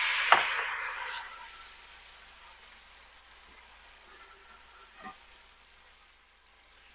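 Chicken stock and water poured into a hot pan of garlic and oil, deglazing the pork chop drippings: a loud sizzle that dies down over the first few seconds to a faint simmering hiss. A sharp knock sounds just after the start, and a lighter one about five seconds in.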